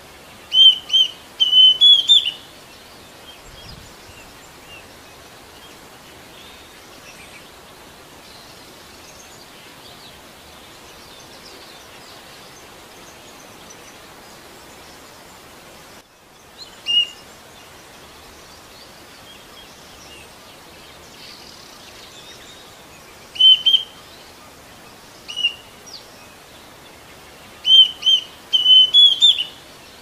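Green cuckoo calling: clear whistled notes, a quick run about a second in, a few single notes later, and another run near the end, the last notes rising. A steady hiss lies underneath.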